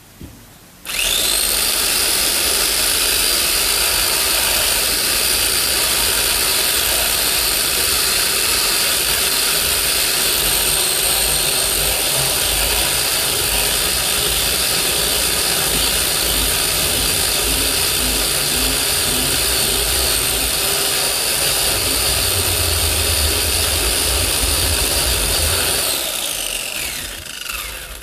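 Electric chainsaw switched on, its motor spinning up fast to a steady high whine, running while cutting wood, then released and winding down with a falling whine near the end.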